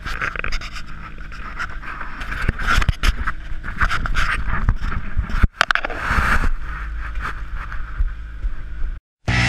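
Close scraping, rubbing and knocking of a handheld action camera being handled, over the steady low drone of a boat's engine.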